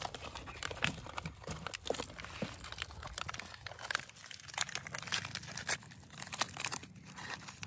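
A packet crinkling and crackling irregularly as it is handled.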